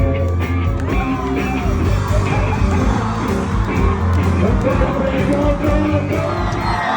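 Band music with a singer's voice over a steady bass line and a regular drum beat.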